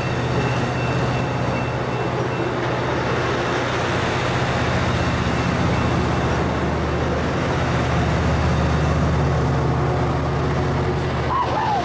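Pacific Surfliner bilevel passenger cars rolling past with steady wheel-on-rail noise, under the low drone of the train's diesel locomotive, which grows louder toward the end.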